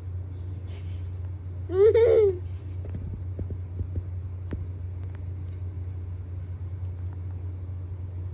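A toddler's short, high-pitched giggle about two seconds in, over a steady low hum, followed by a few faint clicks.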